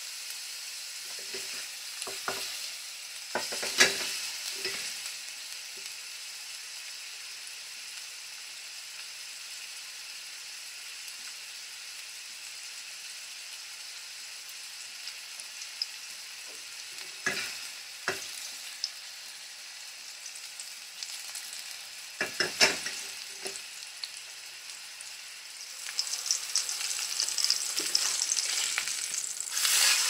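Jalapeño pork sausage patty sizzling in oil in a wok: a steady high hiss. A few short knocks come about 2 and 4 seconds in and again around 17 and 22 seconds. The sizzling gets louder and more crackly over the last few seconds.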